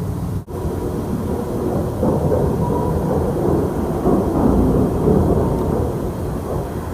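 A low, rumbling noise from the sky, swelling in the middle and easing off toward the end, after an abrupt cut about half a second in.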